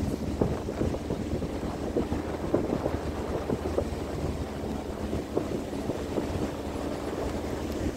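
Motor vehicle engine running steadily while driving on a road, with wind buffeting the microphone and small knocks and rattles now and then.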